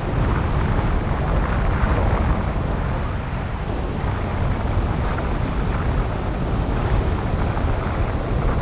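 Wind noise from the airflow of paraglider flight buffeting the camera's microphone: a steady, dense rush, heaviest in the low end, with no engine in it.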